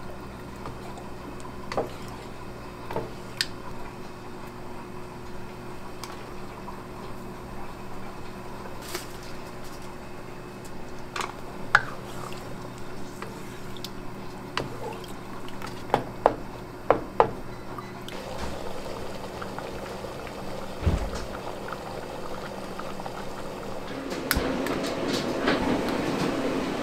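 Thick tomato sauce simmering and squelching in a pot as a spatula stirs it, with a few sharp clicks and a steady hum underneath. Near the end a louder, steady rushing noise comes in.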